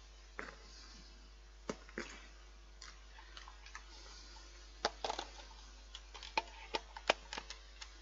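Scattered sharp plastic clicks and knocks from handling a mains plug and an extension lead, with a cluster of them a little past halfway.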